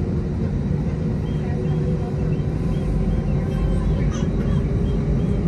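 Airbus A320's IAE V2500 turbofan engines idling while the jet stands on the runway, heard from inside the cabin as a steady drone with a faint constant hum.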